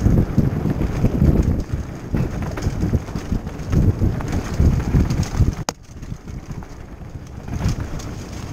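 Wind buffeting the action camera's microphone while a mountain bike is ridden fast down a rough dirt trail, with the rattle and knocks of the bike over the ground. A sharp click comes a little past halfway, after which the wind rumble is quieter for a couple of seconds.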